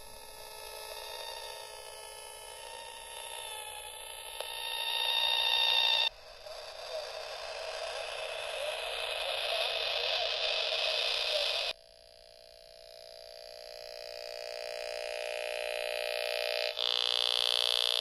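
Electronic tones and buzzing hum from a handheld electromagnetic sound device passed along the installation's metal wire frames. The sound shifts abruptly between sections, about six seconds in, near twelve seconds and a second before the end, and swells in loudness within each section.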